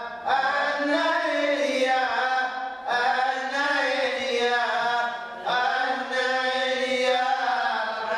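Jewish prayer chant sung from prayer books, in long melodic phrases with short pauses for breath about every three seconds.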